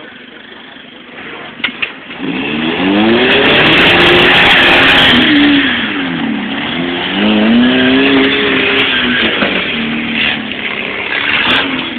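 A four-cylinder 4x4 engine revving hard in two surges, its pitch climbing, dipping and climbing again, as the rig is driven up a steep rock ledge under load. A couple of sharp knocks come just before the first surge and near the end.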